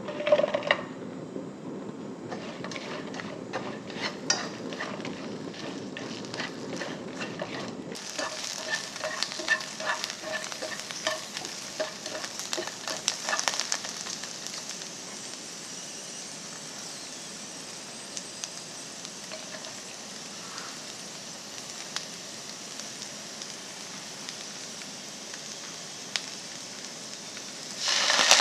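Okra tipped into hot oil in a non-stick frying pan, landing with a loud splash of sizzle, then frying with a steady sizzle and scattered crackling pops that thin out over the first half. Near the end the sizzle suddenly gets louder.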